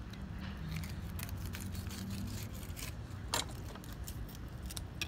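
Fillet knife cutting through a spotted seatrout on a wooden cleaning board: scattered faint scrapes and ticks, with one sharper click a little after three seconds, over a steady low rumble.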